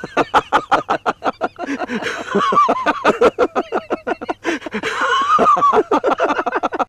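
Two men laughing, a long run of quick ha-ha sounds.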